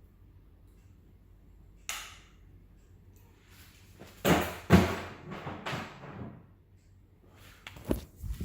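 Hands working on an e-bike's brake parts: a sharp click about two seconds in, then a run of louder rubbing and scraping handling noises, and a couple of small clicks near the end.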